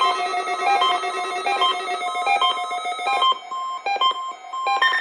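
Electronic tune of short, bright repeated notes over held tones, like a ringtone or music box; it thins to sparser notes a little after halfway.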